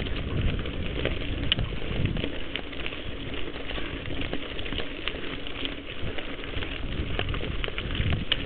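Mountain bike rolling fast along a dirt singletrack: a steady low rumble of tyres and riding noise, with scattered clicks and rattles as the bike runs over the twigs and ruts of the trail.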